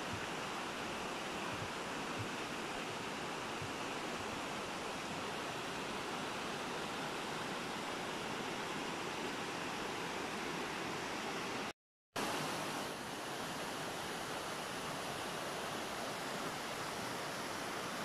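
Mountain stream rushing steadily over rocks in a gorge, with a brief dropout to silence about twelve seconds in.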